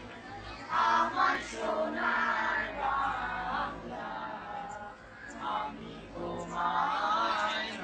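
Many children's voices singing together in chorus, in phrases with short breaks between them.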